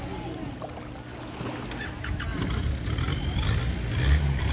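A boat engine running, a steady low hum that grows louder near the end, with faint voices of people in the water.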